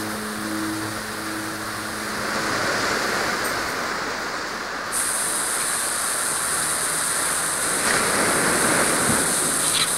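A steady wash of ocean-surf noise in an ambient track. Held low tones fade out about two seconds in, and a brighter hiss comes in suddenly halfway through.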